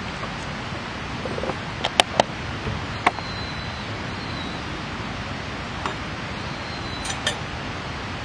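Wood campfire burning with a steady hiss and a handful of sharp crackling pops, the loudest two close together about two seconds in and a few more scattered later.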